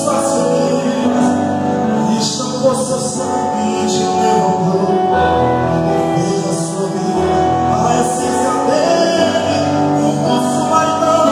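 A group of men singing a Portuguese gospel song together, amplified through handheld microphones, with several voices holding notes at once.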